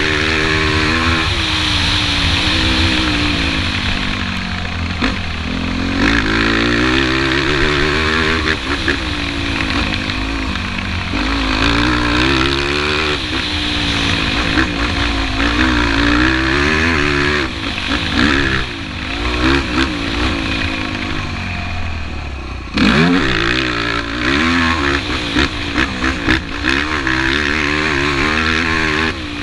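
Yamaha YFZ450 sport ATV's single-cylinder four-stroke engine at race pace, its note rising and falling again and again with the throttle and gear changes. About three-quarters of the way through it drops briefly, then climbs sharply again.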